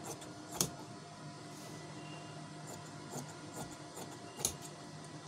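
Large tailor's shears cutting through folded cloth: soft snipping with two sharp clicks of the blades, about half a second in and near the end, over a steady low hum.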